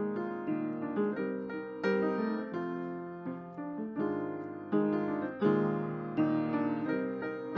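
Background piano music: single notes and chords struck in a gentle, unhurried melody, each ringing and fading as the next begins.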